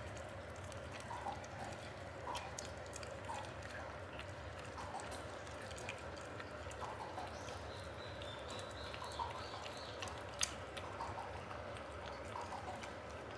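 Kittens eating wet food from bowls: soft wet chewing and smacking with small irregular clicks of teeth and food against the bowls, and one sharper click about ten seconds in. A low steady hum runs underneath.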